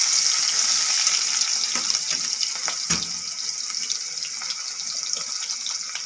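Chopped onion sizzling in hot oil in a metal wok: a steady hiss that eases a little after a couple of seconds. About three seconds in, the metal spatula knocks once against the wok.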